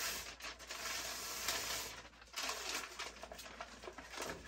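Aluminium foil tape being peeled off its paper backing and pressed onto the furnace's sheet metal, with the backing paper crinkling: a steady rustling and crackling with small clicks, easing briefly about two seconds in.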